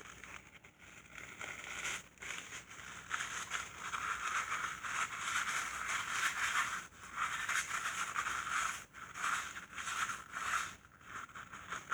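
Cloth rag rubbing and wiping over a transmission case: an uneven rustling scrub that stops briefly a few times.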